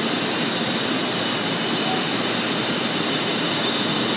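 WhisperKut Plus carbide end mill cutting 6Al-4V titanium on a CNC mill, with the spindle at about 3,400 rpm. A steady, unbroken cutting and spindle noise with a constant high whine over it.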